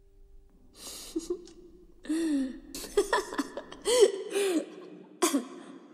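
Short, broken bursts of a person laughing and chuckling, starting about a second in.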